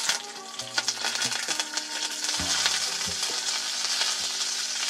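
Sliced shallots, curry leaves and pandan leaves sizzling as they are tipped into hot coconut oil in a clay pot, a dense crackling hiss that starts as they hit the oil and then holds steady.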